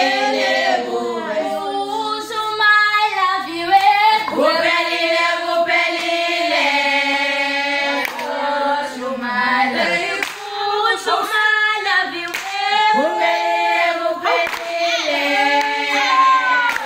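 A group of girls singing together, clapping their hands along with the song.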